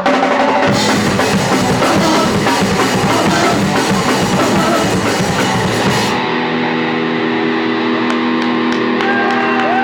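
Punk rock band playing live, distorted electric guitar over a drum kit. About six seconds in the drums stop and a held guitar chord rings on as the song ends.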